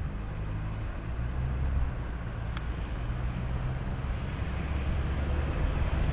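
Wind rushing over a bicycle-mounted action camera's microphone while riding along a road, over a low road-traffic rumble that slowly grows louder. A single light click comes about two and a half seconds in.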